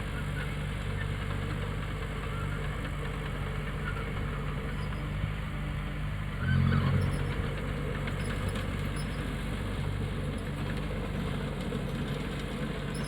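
Diesel engine of heavy earthmoving machinery running steadily at a low, even pitch, briefly louder for under a second about six and a half seconds in.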